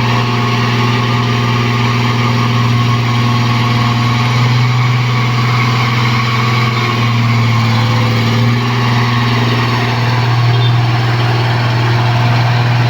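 Diesel engine of a Case 1107 vibratory road roller running steadily with a deep, even hum.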